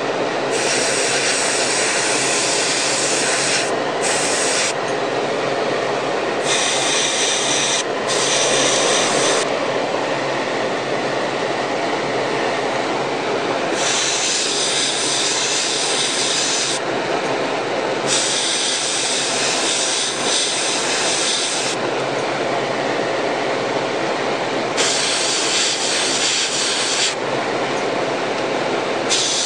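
Airbrush spraying paint in on-and-off bursts of hissing air, each a few seconds long, over the steady hum of a spray booth's exhaust fan.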